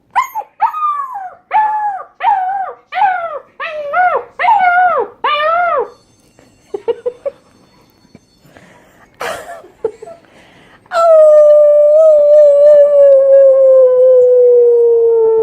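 A puppy howling: about eight short calls in quick succession, each rising and falling in pitch, then a few faint yips and a pause. After that comes one long howl that slides slowly down in pitch, the loudest sound of all.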